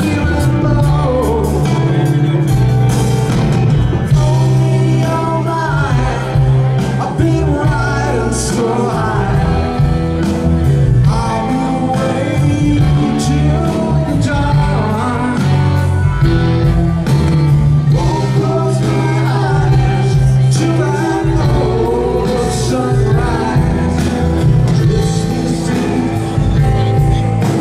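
Live rock band playing, with electric guitars, drums and keyboards under a lead vocal.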